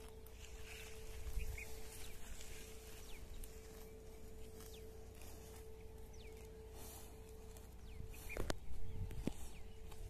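Cattle grazing on leafy weeds: irregular tearing, rustling and crisp snapping of plants as they crop and munch, with a cluster of louder snaps near the end. A faint steady hum runs underneath.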